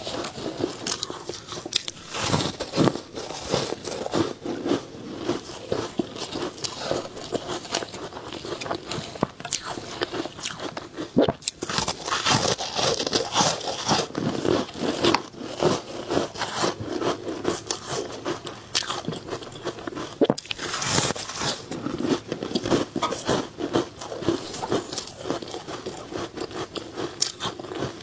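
Close-miked biting and chewing of ice coated in matcha green tea powder: many crisp crunches in quick, irregular succession.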